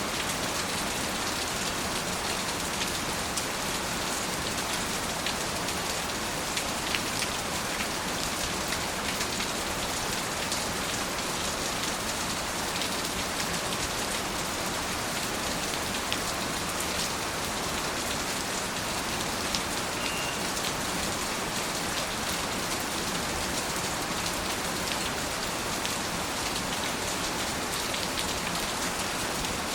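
Steady rain falling, an even wash of sound with many small drop ticks scattered through it.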